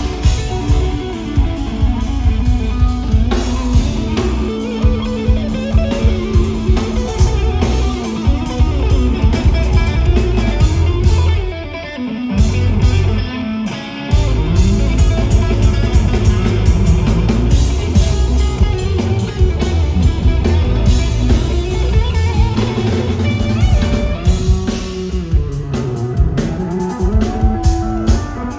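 A live rock trio playing loudly: electric bass, electric guitar and drum kit. About twelve seconds in, the low end drops out for roughly two seconds before the full band comes back in.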